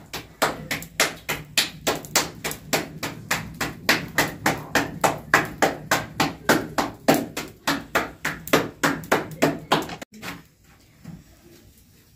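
Roti dough being slapped flat between the palms by hand, a steady run of about four pats a second that stops about ten seconds in.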